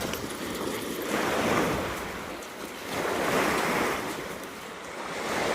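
Ocean surf: waves breaking and washing up the beach, swelling twice and building again near the end.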